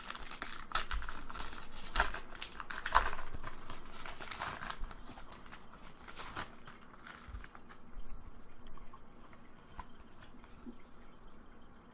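Foil wrapper of a Pokémon trading card booster pack being torn open and crinkled, a dense crackling; after about seven seconds it gives way to quieter rustling as the cards are slid out and handled.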